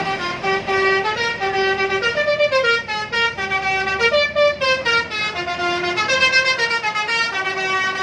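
Telolet horn on an NPM intercity bus playing a quick tune: a run of clear horn notes stepping up and down without a pause.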